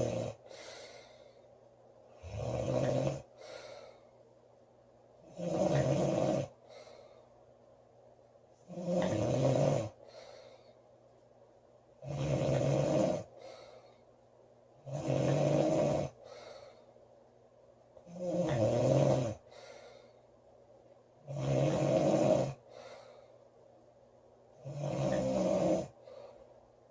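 Woman snoring loudly and regularly: a snore about every three seconds, eight in all, each followed by a brief softer breath.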